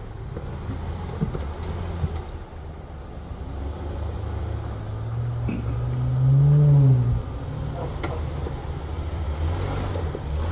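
Jeep Wrangler engine running at low revs as it crawls up rock ledges, with a brief rev that rises and falls about two-thirds of the way through, the loudest moment. A few light knocks come over the engine sound.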